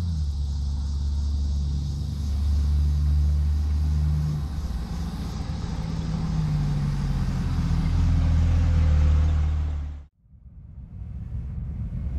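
A 1951 Ford F3 pickup's 302 V8 running through dual exhaust, a low rumble that grows louder as the truck drives up, with the engine note rising and falling a little. It cuts off abruptly near the end, and a different rumble swells in.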